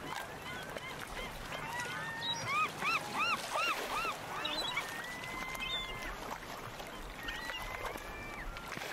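Birds calling: a quick run of about six rising-and-falling calls a few seconds in, then a few longer, steady whistled notes, over a faint background hiss.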